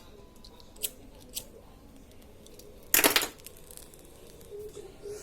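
Handling noise at a workbench: a couple of light clicks, then a short noisy burst about three seconds in, like something being scraped or torn.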